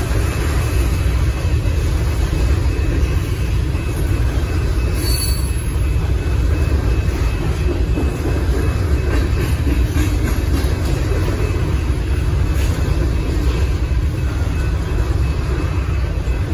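Loaded grain train's covered hopper cars rolling steadily through a road grade crossing: a loud, continuous low rumble of steel wheels on rail, with a brief high screech about five seconds in.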